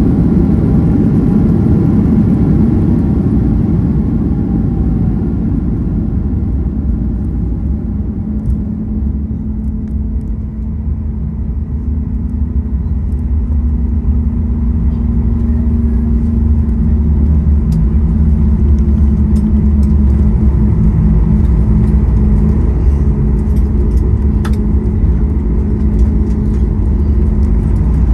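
Cabin sound of a Boeing 737 MAX 8 rolling on the ground after landing: a steady low rumble from the wheels and the CFM LEAP-1B engines at low power. It eases a little about ten seconds in, then holds as a steady low hum.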